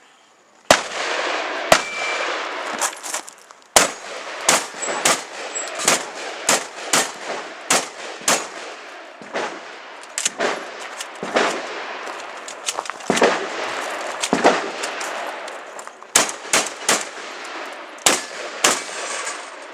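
Shotgun fired about two dozen times at uneven spacing, sometimes in quick pairs and sometimes with pauses of a second or more, each shot leaving a lingering echo.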